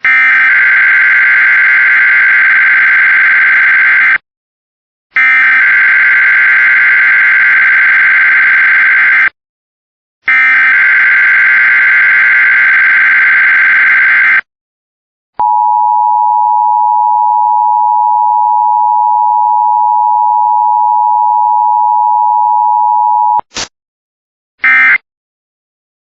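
Emergency Alert System test signal: three long screechy bursts of the SAME digital header data tones with short gaps between them, then the steady two-tone attention signal for about eight seconds. Near the end come a brief blip and the first short end-of-message data burst.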